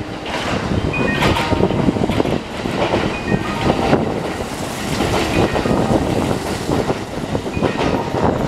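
Kintetsu limited express train running through the station at speed without stopping: the steady rush and rumble of the cars passing close by, with rapid clatter from the wheels on the rails.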